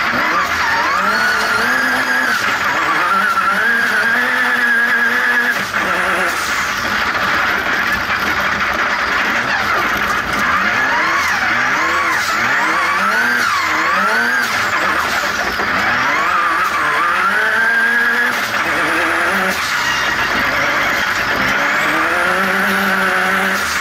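Turbocharged off-road racing buggy engine, heard from inside the cockpit, revving up and down over and over as the car accelerates and lifts through corners on a dirt track. It is running on wastegate spring pressure only, well down on its boost-controlled power.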